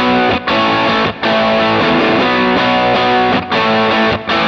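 Distorted electric guitar played through a Kemper Profiler amp profile with the graphic EQ's bass band cut, which shrinks the size of the tone. Ringing chords come in short phrases with about four brief breaks between them.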